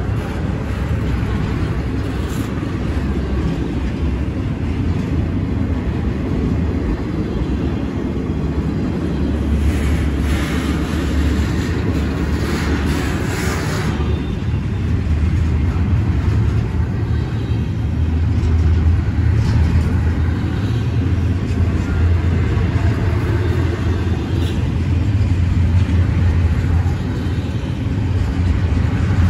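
Double-stack intermodal freight train's container well cars rolling past close by: a steady low rumble of steel wheels on rail, with a louder, hissier stretch between about 10 and 14 seconds in.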